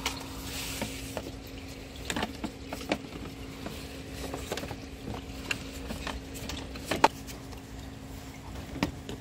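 Scattered metallic clinks and knocks of a ratchet wrench working on the engine's belt tensioner bolt, the loudest about seven seconds in, over a steady low hum.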